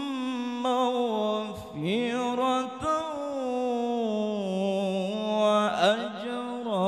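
A man reciting the Qur'an in melodic tajweed style into a microphone, drawing out long, ornamented notes that slide up and down in pitch. About six seconds in there is a brief, louder outburst.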